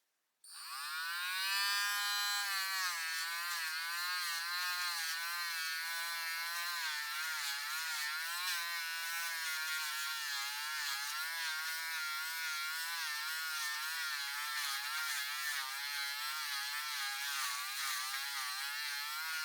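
Rechargeable Dremel rotary tool running with a buffing wheel, polishing a plastic screwdriver handle; its steady whine starts about half a second in and wavers in pitch as the wheel is loaded against the work.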